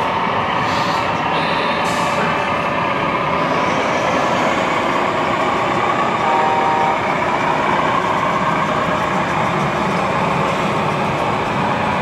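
Radio-controlled American long-nose semi-truck's electronic sound module playing a diesel truck engine running steadily, with two short hisses in the first two seconds.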